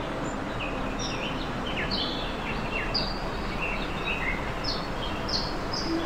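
Many small birds chirping in short, quick notes over a steady rush of falling water from a waterfall.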